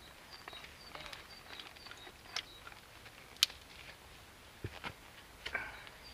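Scattered clicks and knocks, one sharp click louder than the rest about three and a half seconds in and a couple of low thuds near five seconds, around a small wood fire just catching in a hobo stove. Behind them a small bird repeats a high two-note call.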